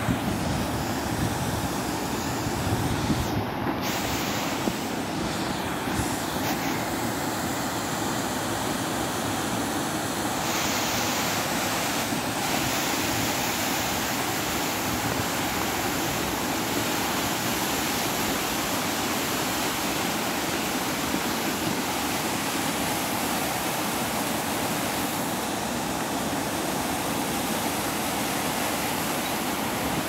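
Mountain stream rushing over rock slabs and small cascades: a steady, unbroken sound of white water.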